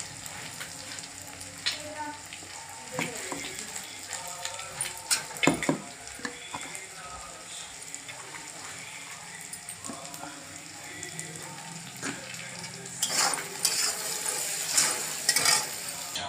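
Fried rice sizzling in a hot pan while a spoon stirs it, scraping and clinking against the metal; the clinks come thicker and louder near the end.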